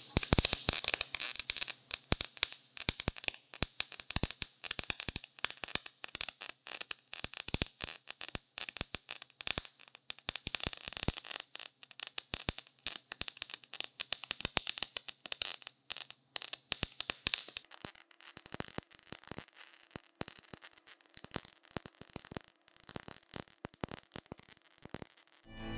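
MIG welding arc crackling and popping in a rapid, irregular stream, with a faint steady hum underneath. The torch is held about an inch from the work, too much wire stick-out, so the arc sputters and throws heavy spatter.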